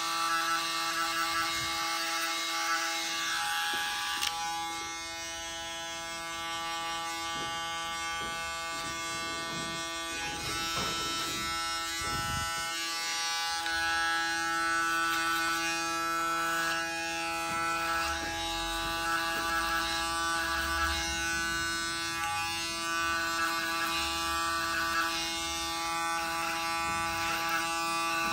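Cordless electric hair clipper buzzing steadily as it cuts hair over a comb, its hum changing pitch a few times.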